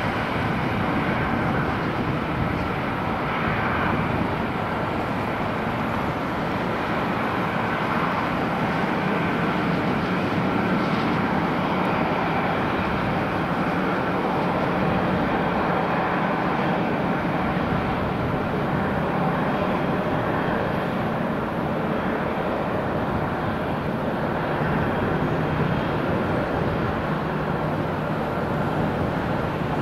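Boeing E-6B Mercury's four CFM F108 turbofan engines running steadily as the jet lines up on the runway for takeoff: a continuous jet rumble with a faint steady whine.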